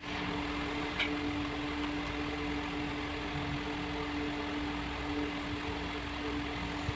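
Small DC motor running at a steady speed, giving a constant hum over a rough whirring noise, with a short click about a second in.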